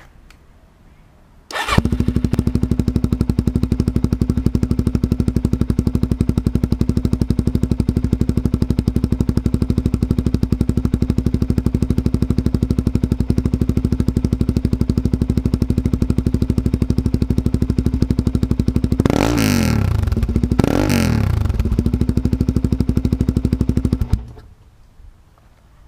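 2009 Suzuki DR-Z400SM's 398 cc single-cylinder four-stroke engine, breathing through a Staintune aftermarket exhaust, starts about two seconds in and idles steadily. About three-quarters of the way through, the throttle is blipped twice in quick revs before it settles back to idle, and then the engine is switched off near the end.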